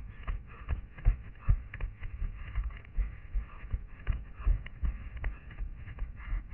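Running footsteps on a pine-forest floor of dry grass, needles and fallen twigs, heard from a head-mounted camera: steady thuds about two and a half a second, each with crunching and rustling of dry undergrowth.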